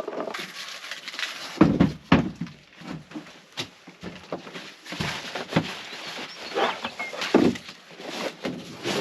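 Bedding being flipped over and arranged on a camp cot: rustling fabric with irregular knocks and thumps, the loudest a couple of seconds in and again near the end.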